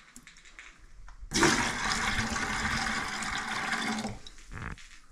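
Water pouring out of a whole-house sediment filter housing into a plastic bucket: a steady gush that starts about a second in and stops after about three seconds.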